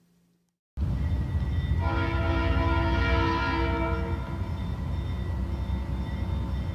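A heavy locomotive rumble cuts in abruptly, and about a second later a train horn sounds one long multi-tone chord lasting a couple of seconds. The rumble carries on under it and eases slightly afterwards.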